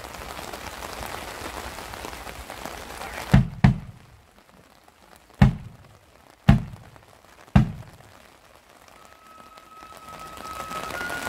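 Steady rain falling, then a bass drum struck five times, two quick beats followed by three evenly spaced about a second apart, bringing the band in. Near the end flutes come in on a held note.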